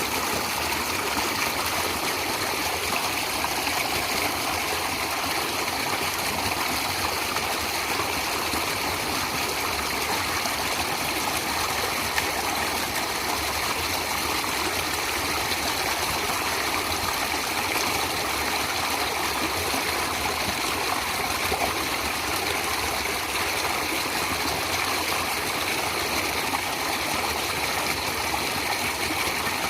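Natural running water flowing steadily, an even, unbroken rush with no change in level.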